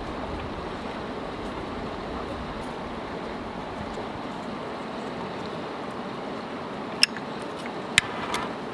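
Two sharp metallic clinks about a second apart near the end, from a brass flip-top lighter's lid being snapped open, followed by a short scrape as the lighter is struck. Under them runs a steady background rush.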